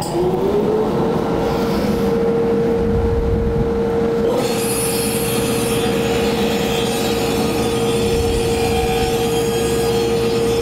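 Table saw with an 8-inch dado blade switched on, its motor spinning up to a steady whine within the first second. About four seconds in, a higher cutting noise joins in as the blade is raised into the wooden bowl blank, which is turned by hand on a hollowing jig.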